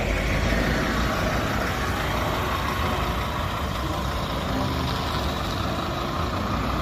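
Scania city bus engine running steadily as the bus drives off and turns away, a low, even engine sound.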